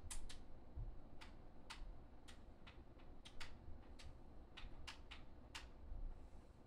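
Sharp, irregular clicks or ticks, about two a second, over a faint low rumble.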